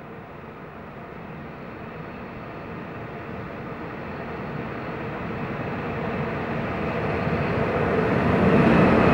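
Czech-built class 181 electric locomotive running light, approaching and passing close by. Its rumble grows steadily louder and is loudest near the end as it goes past.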